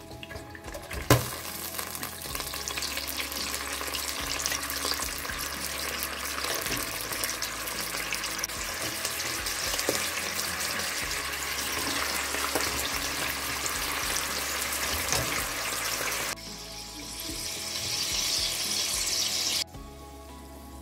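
Chicken thigh sizzling and spitting as it fries in hot oil in a nonstick pot, after a sharp knock about a second in as it goes in. The sizzle breaks off twice near the end.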